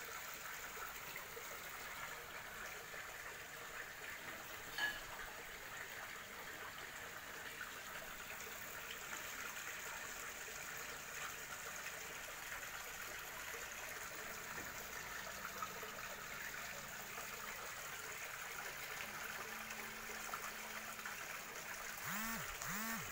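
Steady trickle of water running into a small fish pond, with one brief sharp sound about five seconds in.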